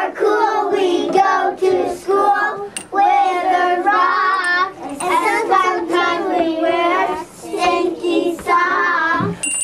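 Young children singing a song.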